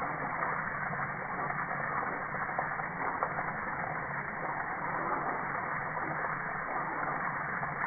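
A steady hiss of a water jet splashing onto a dog's head and fur, muffled and dull, with a faint low hum underneath.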